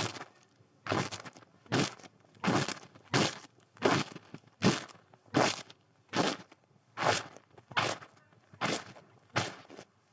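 Footsteps crunching through snow at an even walking pace, a little more than one step a second.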